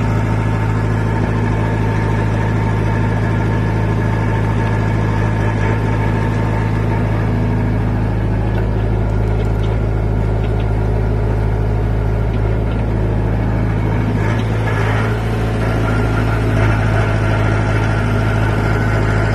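Backhoe loader's diesel engine running steadily with a constant low hum, its tone shifting slightly about fifteen seconds in.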